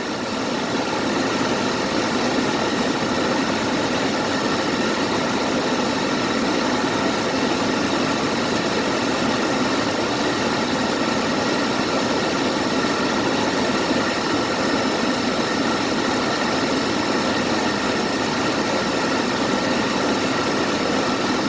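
Car engine and road noise while driving, steady and unchanging, with several faint steady whining tones over it.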